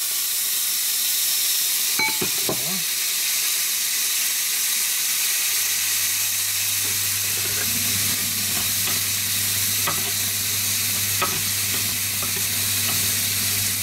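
Steak and onions sizzling hard in a cast-iron grill pan as poured-in Guinness boils off in steam, with a few light clicks of a utensil against the pan. A low steady hum comes in about five seconds in.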